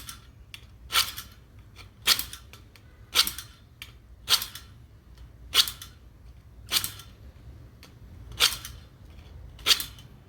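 Hand file scraping in slow, even strokes, about one a second, across the worn sides of a washing machine's drive-block seat, straightening them out so that the drive block no longer pops out during spin.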